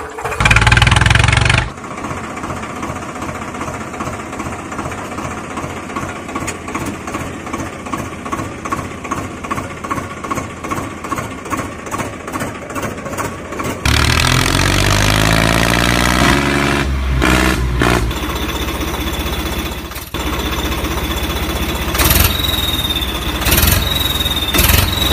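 Tractor engine starting with a short loud burst, then idling with a steady pulsing beat. About fourteen seconds in it revs up and runs louder.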